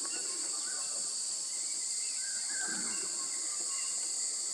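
Outdoor ambience: a steady, high-pitched insect drone, with a few short bird chirps over it.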